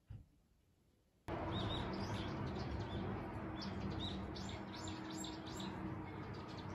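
Small birds chirping in short repeated calls over a steady outdoor background with a low hum, starting abruptly about a second in. Before that, a light tap and then near quiet.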